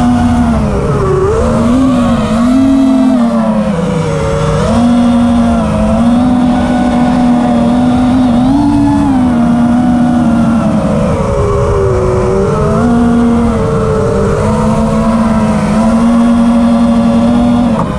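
FPV quadcopter's brushless motors and propellers whining, the pitch rising and falling as the throttle changes through turns, heard from the onboard camera with wind noise underneath.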